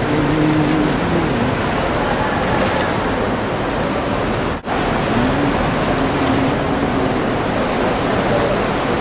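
Steady rush of sea water around a moving tour boat inside a sea cave, with faint voices in it. It breaks off for a moment about halfway through.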